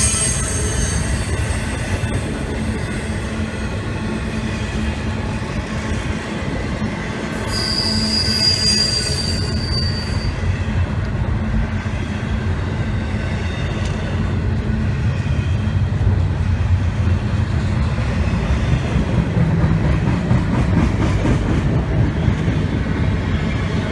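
Freight train rolling past with a steady low rumble of locomotives and cars. About eight seconds in, a high wheel squeal rings out for about three seconds.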